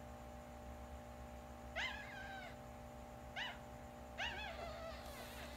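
Newborn Shih Tzu puppy, three days old, crying: three short, high-pitched cries that rise then fall in pitch. The first comes about two seconds in, and the last trails off with a wavering tail.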